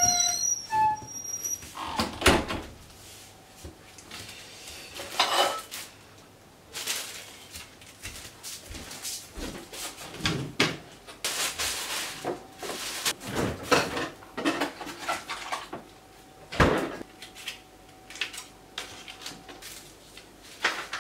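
Irregular knocks, clicks and clatters of objects being handled at a kitchen counter, with two heavier thumps, one about two seconds in and one near the end. A faint steady tone sits under the noises from about the middle on.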